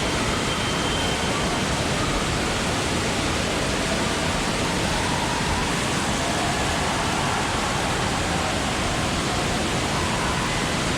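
Indoor water park ambience: a steady rush of running and splashing water from the pools, slides and water features, with faint distant voices mixed in.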